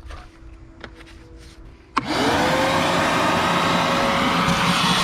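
Craftsman wet/dry shop vac switched on with a click about two seconds in, its motor whining up in pitch and then running steadily and loudly.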